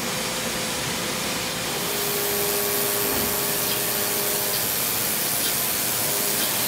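Tormach 1100MX CNC mill cutting aluminium with a small end mill, under a steady hiss from the spray nozzles aimed at the cutter. The hiss grows louder about two seconds in, and a steady tone from the cut runs under it for a couple of seconds.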